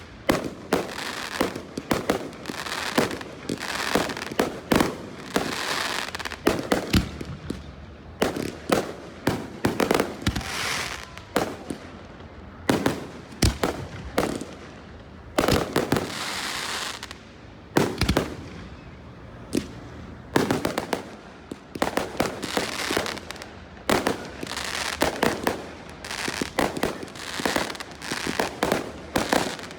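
Fireworks display: a continuous run of sharp bangs, often several a second, with stretches of hissing crackle between them.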